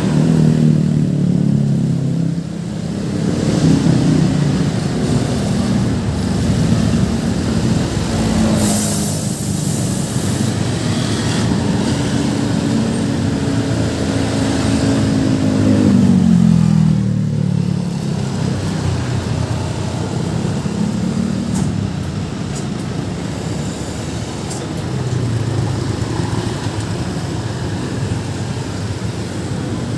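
Busy road traffic, with the engines of heavy vehicles running and passing, their pitch rising and falling. A short hiss comes about nine seconds in.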